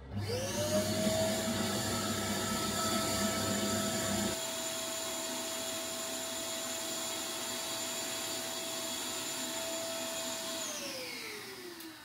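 An electric motor whines up to speed and runs at a steady pitch, then is switched off about three-quarters of the way through, its whine gliding down as it winds down. A lower rumble runs underneath for the first few seconds, then stops.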